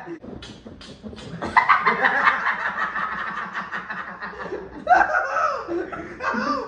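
Two young men laughing hard together in quick repeated bursts: quiet at first, breaking into loud laughter about a second and a half in, with louder bursts about five seconds in and again near the end.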